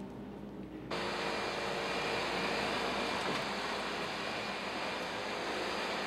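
Vacuum cleaner running, a steady rushing hiss with a thin high whine, coming in abruptly about a second in.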